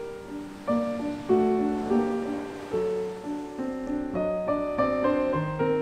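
Background music: a piano playing a slow melody, notes struck one after another about every half second.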